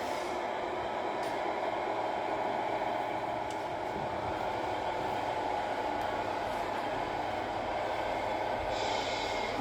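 Steady mechanical drone and whir of 1/14 scale radio-controlled model trucks and construction machines running, with a few faint clicks.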